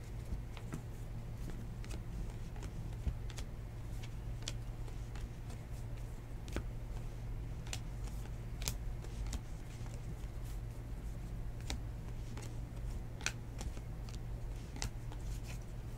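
Baseball trading cards being flipped through by hand, one card slid off the stack after another: irregular light clicks and slides of card on card, over a steady low hum.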